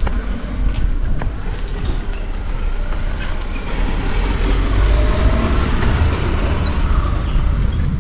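A car on the road: a steady low rumble of engine and road noise.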